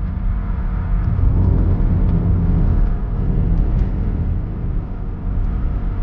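A loud, steady low rumble with no clear pitch.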